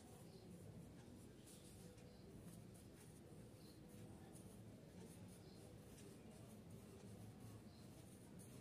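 Faint scratching of a graphite pencil drawing on paper: a run of short, irregular strokes over a low, steady hum.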